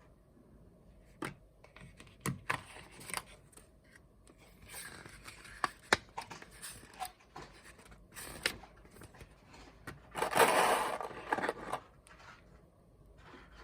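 Handling noise: scattered sharp clicks and short scrapes, then a louder scraping rustle of about two seconds near the end.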